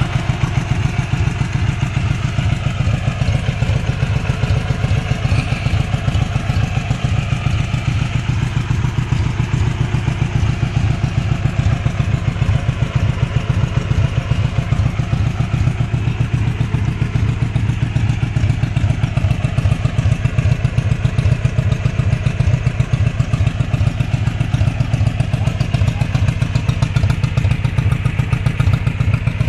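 Dnepr MT-11 motorcycle's air-cooled flat-twin engine running steadily at an even speed, its firing pulses coming in a fast, unchanging rhythm.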